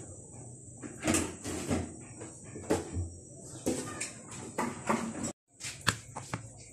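A utensil knocking and scraping in irregular strokes in a wide metal pan of cooked kalamay, a thick sticky-rice and sugar paste. After a brief drop-out about five seconds in, a metal spoon taps and scrapes in a plastic tray as the kalamay is spread.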